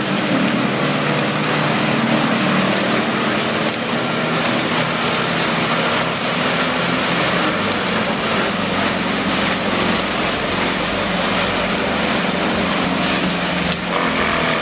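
Vermeer whole tree chipper running steadily under load, its engine noise mixed with the steady rush of material being chipped.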